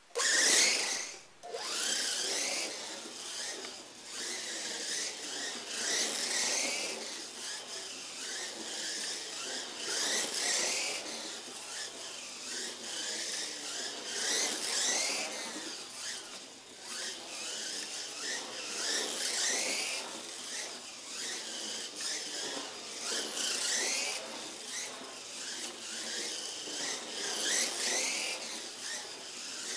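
Kyosho Mini-Z MR-03 RC car's 3500KV brushless motor whining as it drives laps on a foam-mat track, rising and falling in pitch with throttle and tyre noise. It comes past in a surge every four to five seconds.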